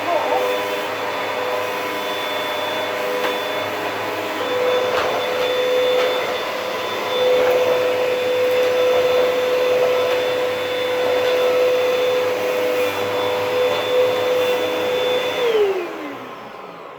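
Vacuum cleaner motor running steadily with a whine, then switched off about fifteen seconds in, its pitch sliding down as the motor winds down.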